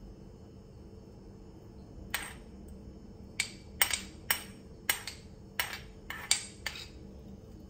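Metal spoon clinking against a small ceramic dish as chopped green onions are spooned out: about ten light, ringing taps, beginning about two seconds in.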